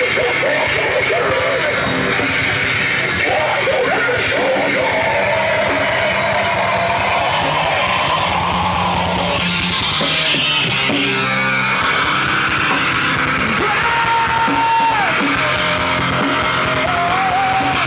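Live post-hardcore rock band playing loud and steady: distorted electric guitars, bass and drums, with a lead guitar line sliding and bending near the end.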